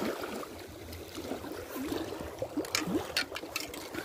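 Small waves lapping and trickling at the lake's edge, with a few short sharp clicks near the end.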